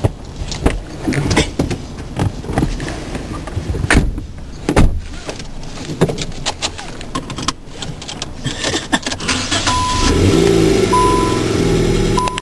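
Knocks and clicks of someone getting into a Nissan car's driver's seat and handling the door and keys, heard from inside the cabin. About ten seconds in, a louder steady running sound comes in, with a short electronic beep sounding three times.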